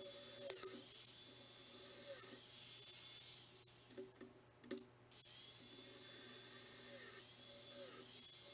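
Biscuit joiner's electric motor running with a steady whine. Its pitch dips each time the blade plunges into the chipboard to cut a slot. The motor stops for about a second and a half, with a few light knocks as the panel is handled, then starts again.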